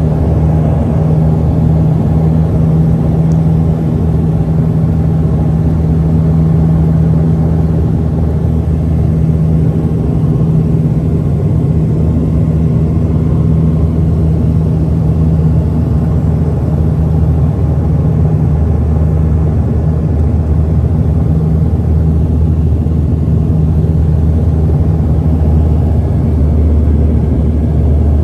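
Turboprop airliner's engines and propellers heard from inside the passenger cabin: a loud, steady drone with a deep hum under it, on the landing approach with the landing gear down.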